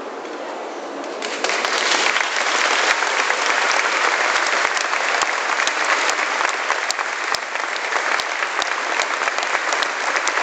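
A crowd applauding, the clapping starting about a second in and running on loudly.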